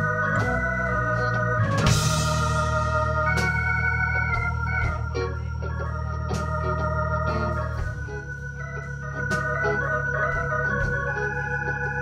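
Live band music: a keyboard playing sustained organ-sounding chords over a held low bass, with a cymbal crash about two seconds in.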